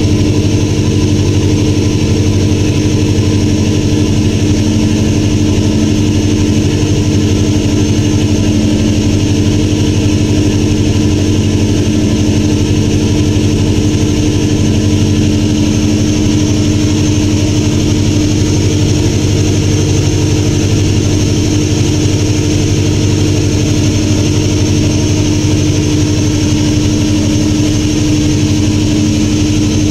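Motorboat engine running steadily at a constant cruising speed, a loud even drone that does not change.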